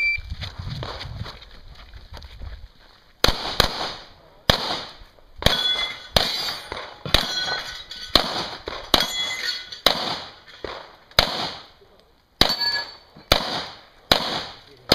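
Handgun shots fired at a steady pace, about fifteen of them starting some three seconds in, each followed by the ringing clang of a hit steel target.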